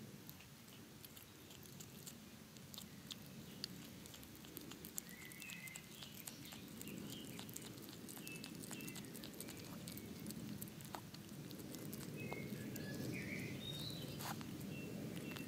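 European hedgehog chewing cheese close up, with many quick clicks and smacks from its mouth over a low rustle that grows louder toward the end. Birds chirp briefly in the background.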